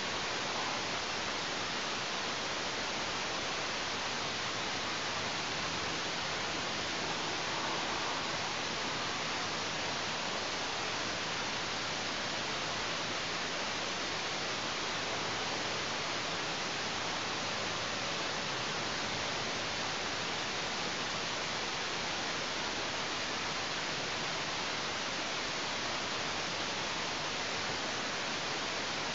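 Steady, even hiss from the nest camera's microphone, with no bird calls or other events.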